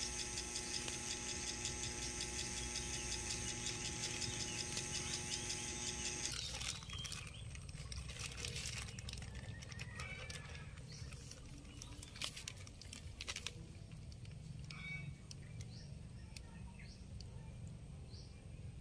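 A small engine runs steadily with an even hum and cuts off about six seconds in. After that come light crinkles and splashes of a plastic bag being worked in shallow pond water, with a few faint bird chirps.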